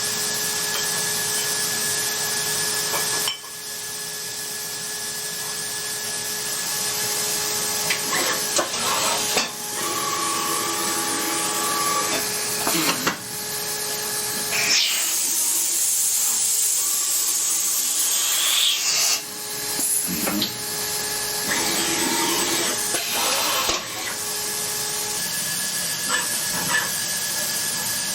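CNC machine running through its cutting cycle: a steady hiss with a hum and a whine in it, the sound shifting abruptly every few seconds as cuts begin and end.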